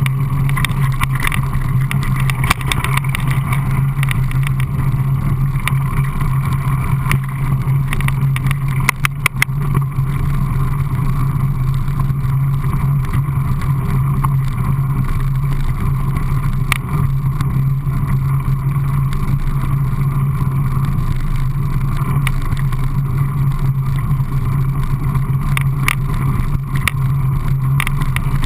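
Mountain bike rolling fast down a packed-dirt trail: a steady droning hum from the tyres on the ground, with scattered rattles and knocks as the bike hits bumps, a cluster of them about nine seconds in.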